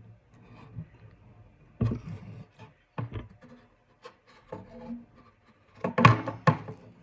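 A hand tool working the metal wire of a wire desk organizer, bending and twisting it to break a section off: irregular clicks and scraping. The loudest is a quick run of sharp clicks about six seconds in.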